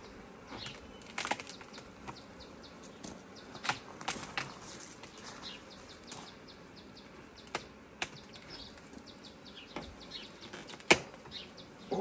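Scattered sharp clicks and knocks from beehive boxes and frames being handled, the loudest near the end. Behind them is a faint steady hum of bees around the open hive.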